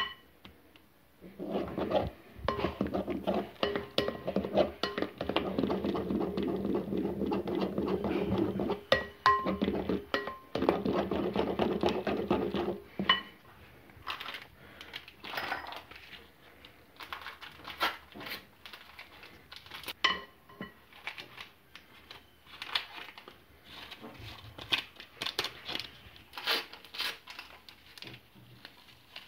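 Wire whisk beating chocolate cake batter in a bowl: a dense run of rapid scraping, clicking strokes for the first thirteen seconds or so, then only sparse light taps and clinks.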